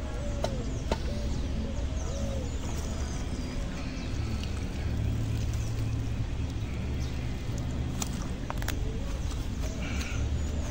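Birds calling and chirping over a steady low rumble, with two sharp clicks about eight seconds in.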